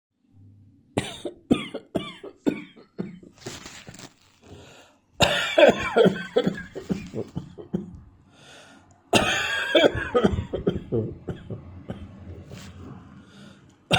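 A person's dry cough in fits: a run of short, sharp single coughs, then two longer coughing bouts starting about five and nine seconds in. The cough is set off by dust in the air.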